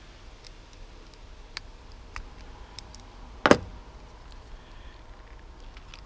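Small sharp plastic and metal clicks as a precision screwdriver prises at the plastic housing of a motorcycle ignition switch, with one loud sharp snap about halfway through.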